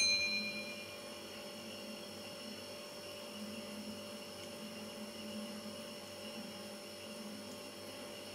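Low, steady electrical hum over faint room noise. It opens with one short metallic ping that rings for about a second.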